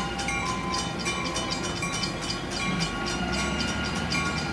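Pair of EMD SD70M diesel locomotives rumbling past at low speed, with a bell ringing rapidly and evenly, about three to four strokes a second.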